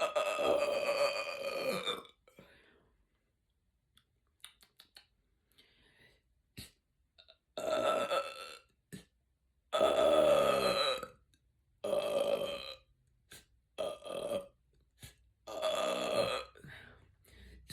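A woman burping, six belches with short pauses between them, the first and longest about two seconds; the belches are brought up by gas from the carbonated raspberry sparkling water she is drinking. Faint clicks in the gaps.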